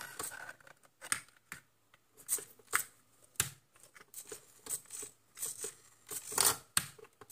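Handling noise: irregular short clicks and rustles as small plastic parts and wires of a homemade radio-controlled toy tractor are handled.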